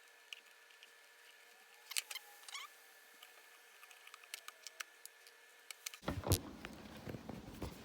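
Scattered small metallic clicks and knocks of hand tools and bolts as a steering wheel is bolted onto a quick-release hub, with a few sharper knocks about two seconds in and more handling noise from about six seconds on.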